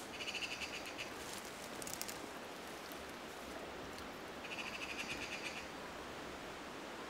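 Eurasian magpie chattering: a rapid rattle in bursts, one about a second long at the start, a short one about two seconds in, and another about halfway through.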